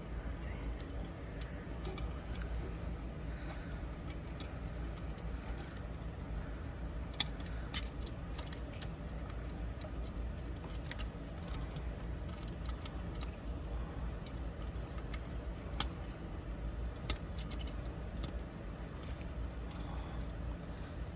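Small clicks and rattles of a replacement start relay and overload being handled and pushed onto a refrigerator compressor's terminals, a handful of sharp clicks spread over the stretch, over a steady low hum.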